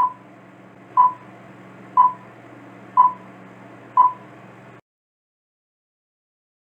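Countdown timer sound effect: five short beeps, one each second, over a faint steady background.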